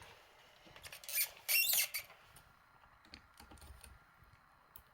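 Metal rotor pick tool being worked into the keyway of a Bricard Chifral lock cylinder: two short, high scraping squeaks of metal on metal about a second in, then light scattered clicks.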